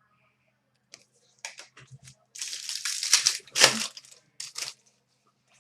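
Trading card pack wrapper crinkling and tearing as it is ripped open by hand. There are a few short crackles first, then a longer run of crinkling, with the loudest rip a little past the middle.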